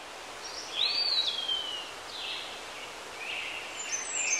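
Bird-like whistles and chirps over a steady hiss, with one long whistle that rises, then slides downward about a second in, and short high chirps near the end.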